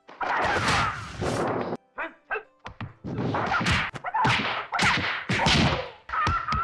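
Martial-arts film fight sound effects: a rapid run of loud punch and kick impacts with whooshes, one after another with brief gaps.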